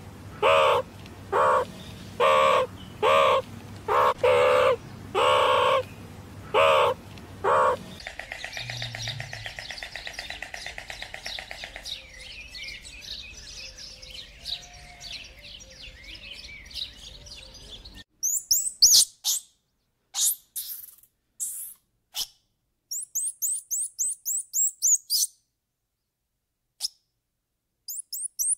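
Meerkats giving about ten short, repeated, pitched calls over the first eight seconds, followed by a quieter, rapid fine rattle. In the last ten seconds come high, quick squirrel monkey chirps, including a fast run of about a dozen.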